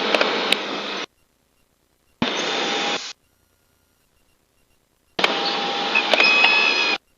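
Cessna 172 cockpit noise on the landing rollout, heard through the headset intercom. It cuts in and out abruptly three times as the squelch opens and closes, with a squeal joining in the last burst. This is the rollout on which the nose wheel was shimmying.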